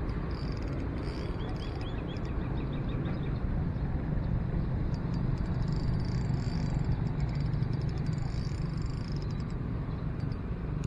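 Shimano FX 2500 spinning reel being wound in: a steady low whirr with faint fast clicking, growing louder midway and easing off near the end.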